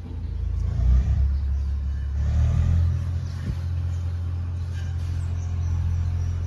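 Low, steady engine rumble that swells about a second in and then holds steady.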